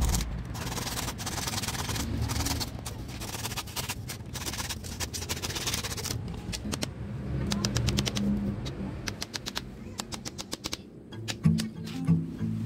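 Hand saw cutting bamboo slats: a fast run of sharp clicks and rasping strokes, over quiet background music that swells near the end.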